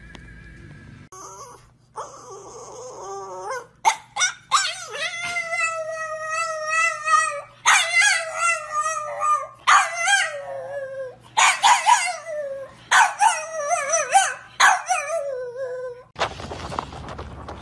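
A dog howling and whining in long, wavering, pitched cries, broken by a few short yips. About a second before the end the cries stop and a scuffling, rustling noise follows.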